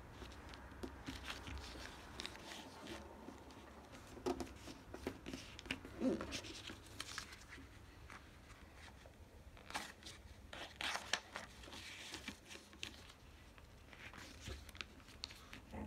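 A sheet of paper being folded and creased by hand on a tabletop: faint, irregular rustling and crinkling, with bunches of sharper crackles a few seconds in and again past the middle.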